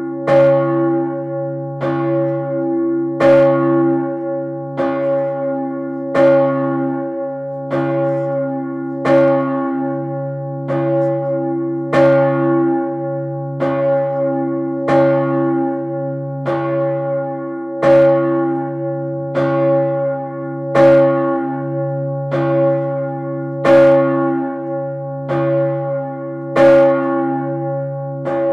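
Large swinging bronze church bell, the 1588 bell Urban tuned to about C-sharp, tolling steadily. Its clapper strikes about every one and a half seconds, every other stroke louder, and each stroke rings on into a continuous low hum.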